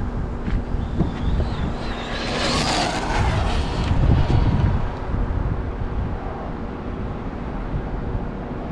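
Brushless electric motor of a Losi 1968 Ford F100 RC drag truck on a 3S battery, whining as the truck makes a high-speed pass, swelling to its loudest about three to four seconds in and then fading. Wind buffets the microphone throughout.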